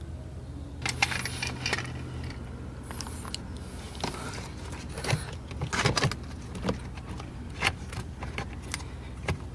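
Irregular small clicks, taps and rattles of hands working plastic dashboard trim, clips and a cable free around a Mercedes W208 headlight switch.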